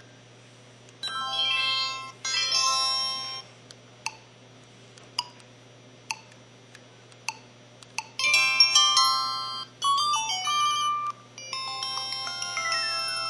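LG-SD820 mobile phone's built-in electronic alert tones played one after another. Two short chimes come first, then several single short beeps, then three longer polyphonic jingles, the last with a falling run of notes.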